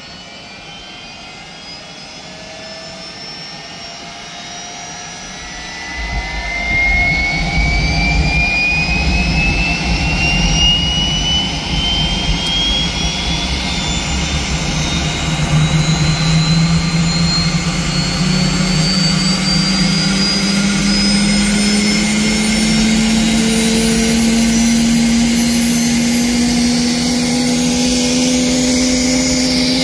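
Aérospatiale SA 341F Gazelle's Turbomeca Astazou turboshaft starting up: a turbine whine that climbs steadily in pitch as it spools up. About six seconds in it jumps louder with a deep rumble underneath, and a lower tone rises slowly in the second half.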